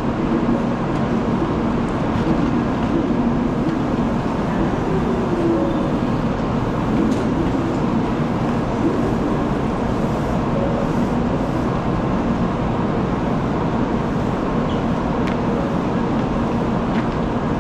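Steady hum and hiss on a station platform beside a stopped shinkansen train, with a faint steady tone running through it.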